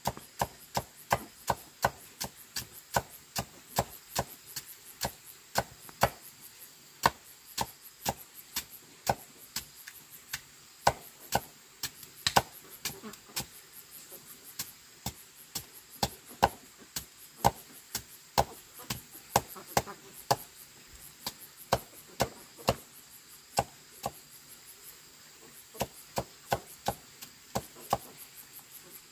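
Knife slicing through raw white roots by hand, a quick run of sharp chopping strokes about two a second, thinning out near the end.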